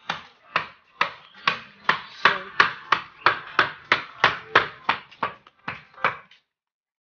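A rapid, even series of sharp knocks, about three a second, louder than the speech around them and dying away near the end.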